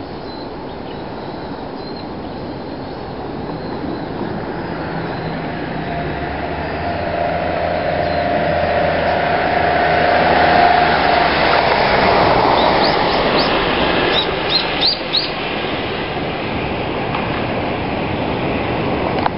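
Rumble of a passing train with a steady hum, swelling to a peak about halfway through and then easing off. A few quick bird chirps come near the end.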